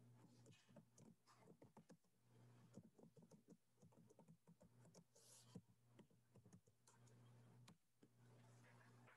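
Faint typing on a computer keyboard: quick, irregular keystrokes with a few short pauses, over a low steady electrical hum.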